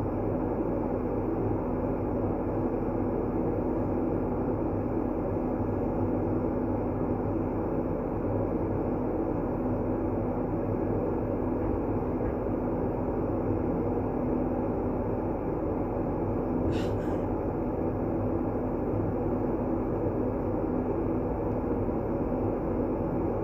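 Steady, unbroken low-pitched noise of a calming white-noise track, like a deep even rumble with a faint hum in it. A brief faint tick sounds once, about two-thirds of the way through.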